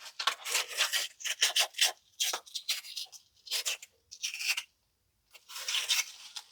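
Irregular rasping, scraping strokes on watermelon: a run of short bursts for about five seconds, then one more after a brief pause.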